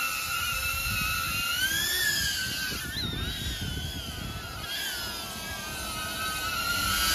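DJI Avata FPV drone's ducted propellers whining in flight, the pitch wavering up and down as it manoeuvres, with a sharp rise about three seconds in.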